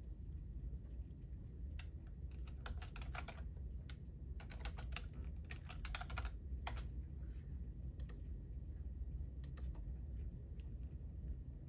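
Typing on a computer keyboard: irregular runs of keystrokes with short pauses between them, busiest through the middle, with a few lone keystrokes near the end, over a steady low background hum.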